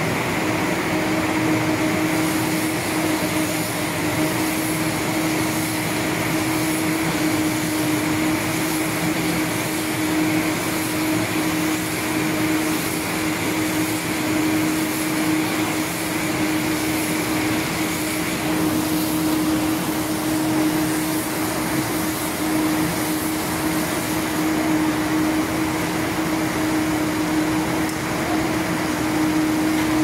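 Round silage baler-wrapper machine running steadily, a continuous mechanical hum with one constant tone; a higher whine fades out about two-thirds of the way through.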